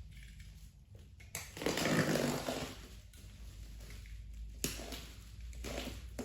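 Packaging being handled and unwrapped: rustling and crinkling with a louder burst about a second and a half in, and a few sharp clicks and taps.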